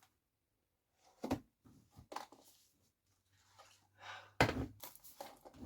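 Speedcube packaging being handled and opened: a single sharp click about a second in, a few faint rustles, then a run of louder clicks and rustling near the end as the box comes apart.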